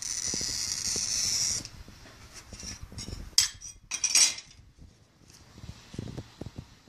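A glass cutter's wheel scoring stained glass with a steady high hiss that stops about a second and a half in. Loose pieces of glass are then handled and clink together, sharply twice around the middle, with softer knocks near the end.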